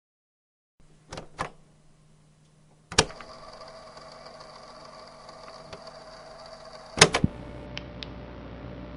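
Horror sound effects: two sharp clicks, then a sudden hit that starts a steady electrical hum with a high whine and hiss. Near the end a loud bang with a few quick knocks, after which a coarser, noisier hum carries on.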